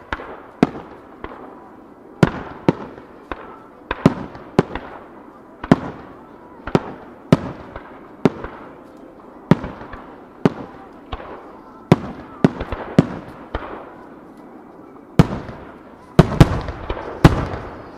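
Aerial firework shells bursting one after another, sharp booms about once or twice a second with crackling between them. A quicker cluster of the loudest bursts comes near the end.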